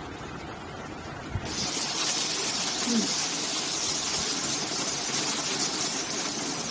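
Water sprinkled onto a hot dosa griddle, sizzling with a steady loud hiss that starts suddenly about a second and a half in. The sizzle is the sign that the griddle is hot enough for the batter.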